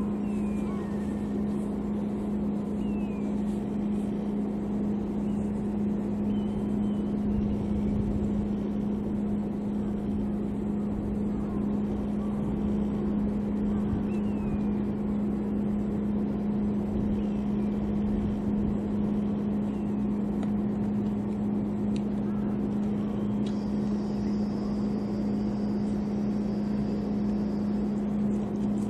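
A steady engine drone with a constant low hum that does not change in pitch or level, typical of a motor idling at a harbour. A few faint, short chirps sound over it.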